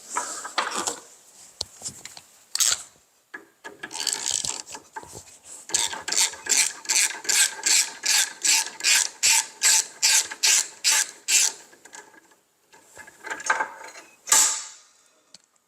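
A hand Torx driver loosening and backing out the T27 bolt on a miter saw's guide rail: a regular run of short ratcheting, grating strokes, about three a second, after a few seconds of scattered scraping. A single sharp knock near the end.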